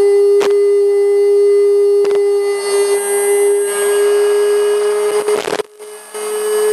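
Steady electrical tone from the BYD D9RA electric bus's IGBT VVVF traction inverter and inductor coil, with sharp clicks about half a second and two seconds in. A rough, crackling noise builds from a little past halfway, and the sound nearly cuts out briefly before the tone returns. The uploader puts the noise down to circuit issues and interference with the built-in auxiliary supply of its 2-in-1 traction and auxiliary converter.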